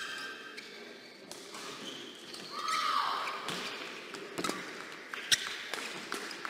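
Badminton rally on an indoor court. A shoe squeaks on the court floor about two and a half seconds in, and rackets crack against the shuttlecock, the sharpest hit a little after five seconds.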